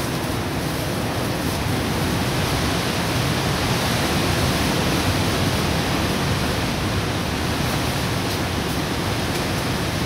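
Strong wind blowing hard as a loud, steady rushing noise that swells a little about halfway through.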